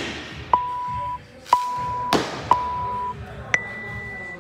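Workout timer counting down: three short beeps at one pitch about a second apart, then a higher, longer beep about three and a half seconds in that signals the start. A short knock sounds just after two seconds.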